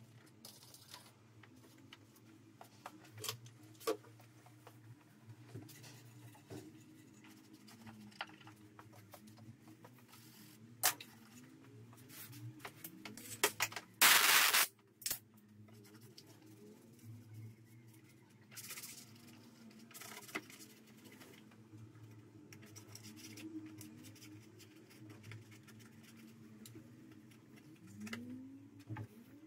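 Microfiber cloth rubbing over plastic engine-bay parts, with scattered light clicks and knocks from handling. About halfway through comes one short, loud hiss of a compressed-air blow gun lasting under a second.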